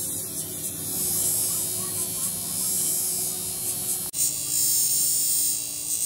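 Pedestal bench grinder running, its abrasive wheel grinding the steel cylinder of a hydraulic jack: a steady motor hum under a high grinding hiss. The sound changes abruptly about four seconds in.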